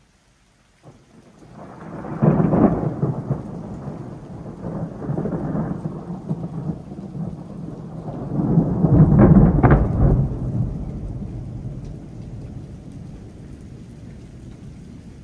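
A long peal of thunder. It starts suddenly about a second in, rumbles with two loud swells, the first around two seconds in and the strongest around nine to ten seconds, then dies away slowly.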